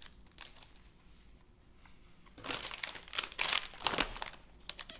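Plastic snack wrapper crinkling as it is handled, in a cluster of sharp rustles that starts about halfway through.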